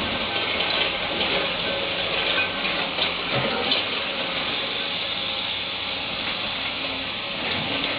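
Caterpillar 320 hydraulic excavator's diesel engine and hydraulics running under load while it digs, a steady hissing rumble with a few brief knocks about three to four seconds in.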